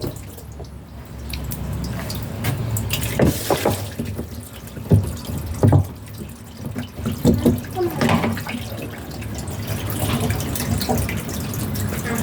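Water running and splashing, with a series of short knocks and clatters scattered through it.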